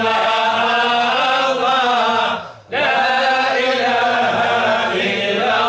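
Unaccompanied male chanting of a Sufi devotional ode, sung in long, slowly bending melismatic lines, with a short breath break about two and a half seconds in.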